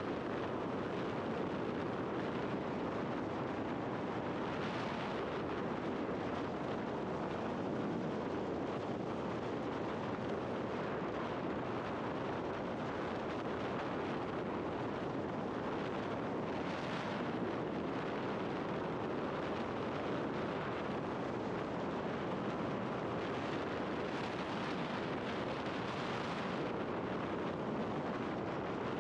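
Steady rush of wind over a helmet-mounted camera on a scooter cruising at road speed, with tyre and road noise underneath and no engine note. A few brief hissing swells about 5, 17 and 26 seconds in.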